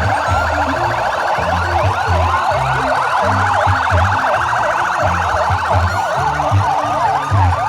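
Many ambulance and volunteer-motorcycle sirens sounding at once, fast yelps and slower wails overlapping in a dense chorus, with an uneven low thudding beneath.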